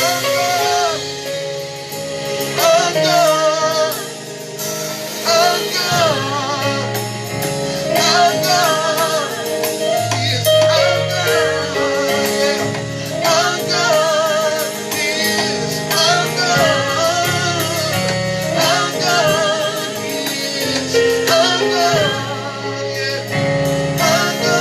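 Gospel worship music: a vocalist singing long melismatic lines with vibrato over sustained keyboard-like chords.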